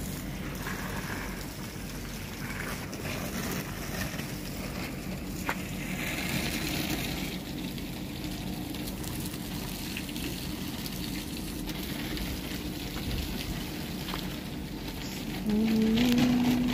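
Water spraying from a garden hose onto potted plants and soil, a steady rushing hiss. A person's voice sounds briefly near the end.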